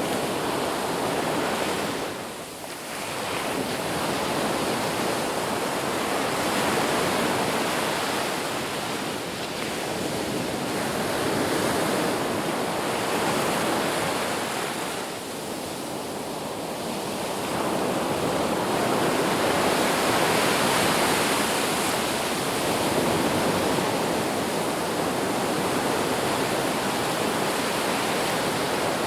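Ocean surf: waves breaking and washing in a continuous rushing noise that swells and eases every few seconds, dipping briefly about two seconds in and again around the middle.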